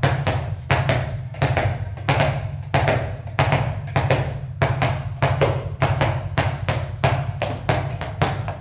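Two handballs bounced alternately, left and right hand in turn, on an indoor sports floor: a steady rhythm of about three bounces a second.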